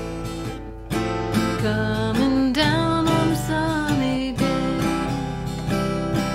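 Acoustic guitar strummed in a steady rhythm. About two to four seconds in, a held note wavers up and down over the chords.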